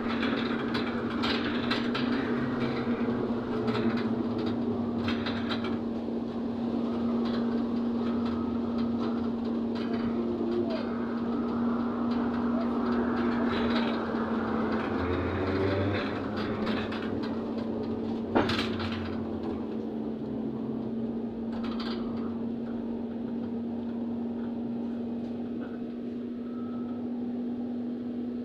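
Inside a ZiU-682G trolleybus under way: a steady electrical hum over road rumble and body rattle, with the traction motor's whine gliding up and down in pitch around the middle. A single sharp knock comes about two thirds of the way through.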